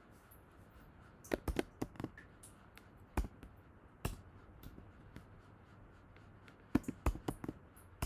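Computer keyboard being typed on: irregular sharp key clicks, a quick run of them about a second in, single taps around three and four seconds, and another quick run near the end.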